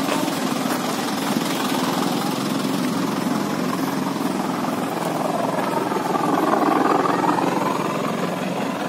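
Motor vehicle engines running steadily, with one rising in pitch and falling back again about six to seven seconds in, the loudest moment.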